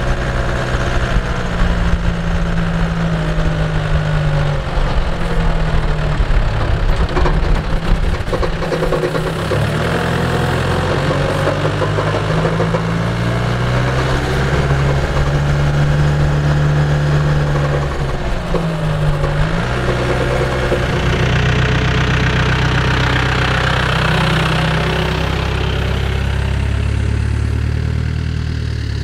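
M1161 Growler's engine running as it drives across a grassy field, heard from outside beside the front wheel. The pitch steps up and down with speed, dipping briefly twice, over a steady rush of noise.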